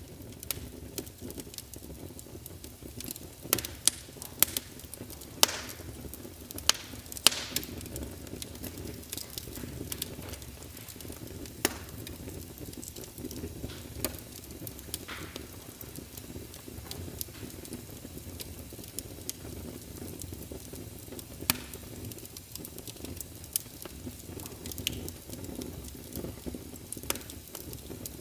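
Wood fire in a fireplace crackling, with irregular sharp pops and snaps over a low, steady rumble.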